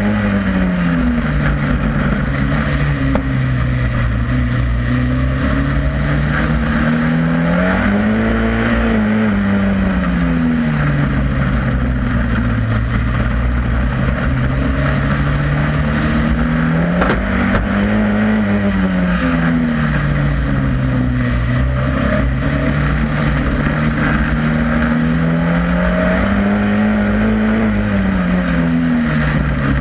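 On-board sound of a Superstox stock car's engine at racing speed. Its pitch rises as it accelerates and falls back again three times, about nine seconds apart, over a steady rush of wind and tyre noise.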